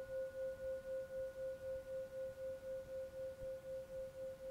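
Background music: a single steady, soft pure tone that pulses evenly about three or four times a second.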